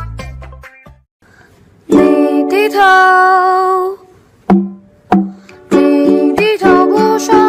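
Background music: one tune fades out, and after a short lull a long held sung note comes in, followed by a bouncy ukulele-like strummed song with singing.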